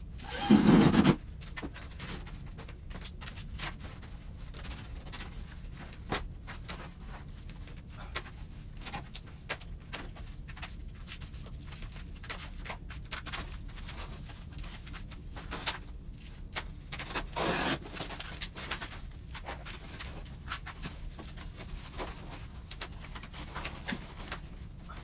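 Hand work on the fireplace cladding: scattered light clicks and rustles, with two short loud rustling bursts, one just after the start and one about seventeen seconds in.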